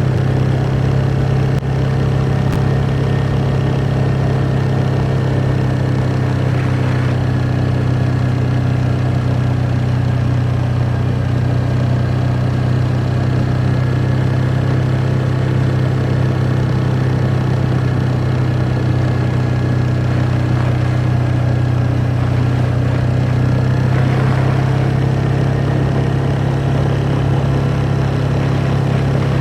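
ATV engine running at a steady speed, a constant low drone that holds one pitch throughout.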